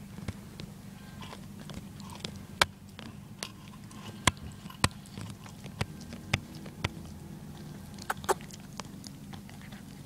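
A dog chewing on a car seatbelt: irregular sharp clicks and crunches of its teeth on the belt, a dozen or so, over a steady low hum.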